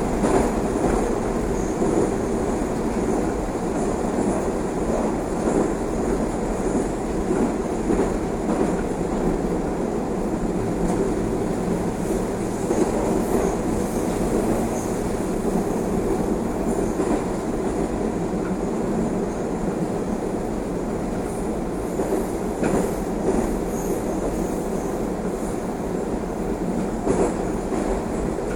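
Moscow Metro 81-760A/761A/763A 'Oka' train running, heard from inside the car: a steady rumble of wheels on the rails, with occasional clicks and a faint high-pitched squeal at times.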